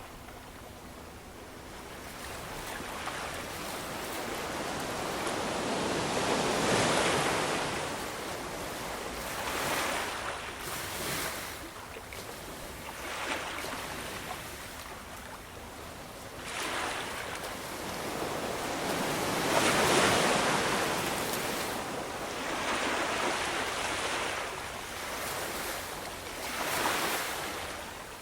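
Ocean surf: waves breaking and washing in one after another, rising and falling in loudness. The two biggest waves come about a quarter of the way through and again past two thirds of the way through.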